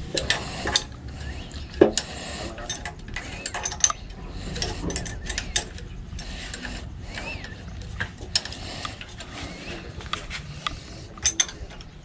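Ratchet wrench clicking and metal tools clinking on a diesel engine being reassembled after a top overhaul, in irregular bursts with a few louder metal strikes.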